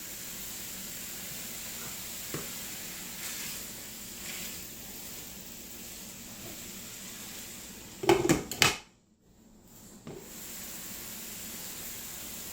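Precooked steak and chicken strips sizzling steadily in a buttered skillet with teriyaki. A short clatter of utensil or pan a little after eight seconds, then the sound drops out for about a second before the sizzling resumes.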